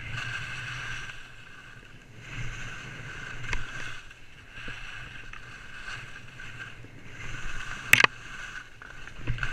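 Skis sliding and turning through snow, the swishing swelling and fading with each turn, with one sharp clack about eight seconds in.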